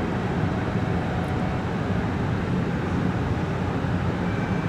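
Steady low hum of a stationary JR Kyushu 787 series electric train standing at the platform, its onboard equipment running.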